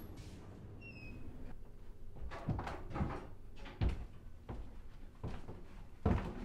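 A door opening with a click and a short squeak, then slow, heavy footsteps on wooden stairs, coming closer together and louder near the end.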